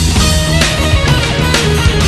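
Background music: an instrumental rock-style passage led by guitar, with a steady beat.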